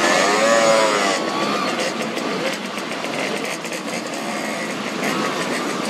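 A procession of Simson two-stroke mopeds riding past, the many small engines buzzing together. Near the start one engine's pitch rises and falls as it passes.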